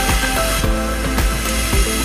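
Background music with a steady beat, held notes changing over regular strikes about twice a second.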